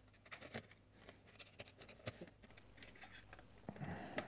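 Knife cutting around the aluminium foil lid of a ration meal tray, with faint scattered clicks and scratches, and the foil lid being peeled back near the end with a light rustle.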